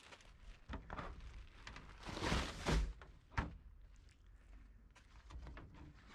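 Plastic lids of large wheeled communal waste containers being handled. There are a few light knocks, then a louder clattering, rustling thud about two seconds in, and a sharp knock a moment later.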